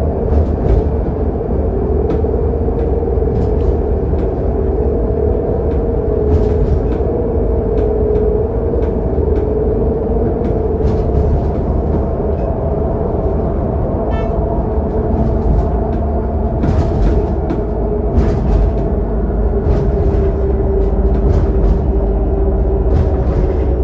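Scania K280UD double-decker bus heard from inside the lower deck while cruising: a steady drone from its five-cylinder diesel and the road, with a steady whine over it. Short clicks and rattles from the interior come every second or so.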